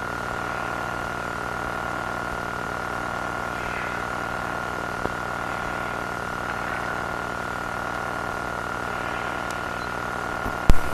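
Steady droning hum made of several low tones with a thin high whine on top, the eerie ambient soundtrack of an analog-horror video. A single sharp, loud click comes just before the end.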